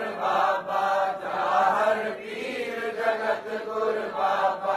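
Sikh devotional chanting of a Gurbani line, voices sung to a steady repeating tune without a break.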